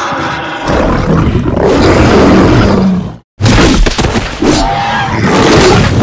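Sound-effect roars and snarls of big cats, a loud, harsh run that breaks off for an instant about three seconds in and starts again.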